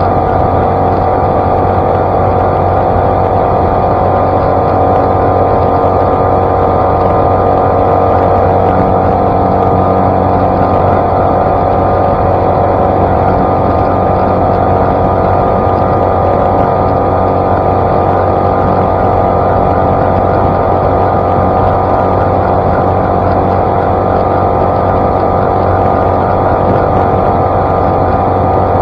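Outboard motor on a small flats skiff running steadily at high speed while the boat planes, with water rushing off the hull. The engine note holds steady with no change in pitch.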